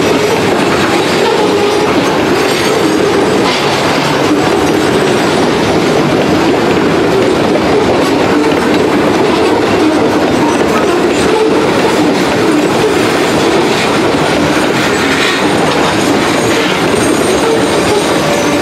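Hopper cars of a long ore pellet freight train rolling steadily past, a loud continuous rumble with the wheels clattering over the rails.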